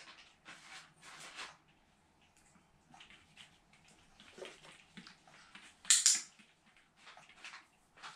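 A paper tissue being handled: soft rustling and crinkling in short bursts, several in the first second and a half, with a sharper hissing burst about six seconds in.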